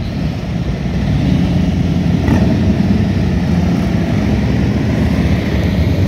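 A column of police motorcycles riding slowly past, their engines running together in a steady low drone that grows louder about a second in.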